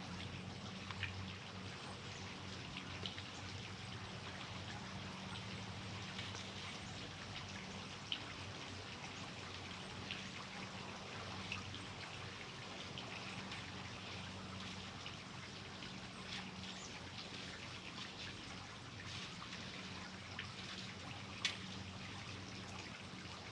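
Faint, steady trickling water with a low hum under it. A few light clicks come about eight, eleven and twenty-one seconds in.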